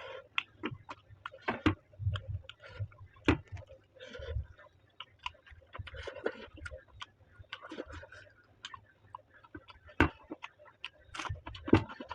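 Close-miked eating: chewing with wet mouth sounds and many sharp, irregular clicks and smacks, and brief lower bursts in between.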